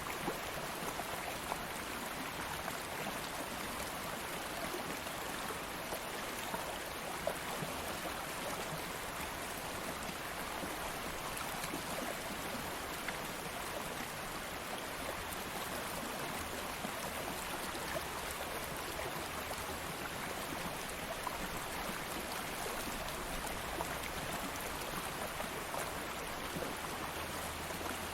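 Small stream of water flowing steadily, with a continuous rushing and small splashes and drips scattered through it.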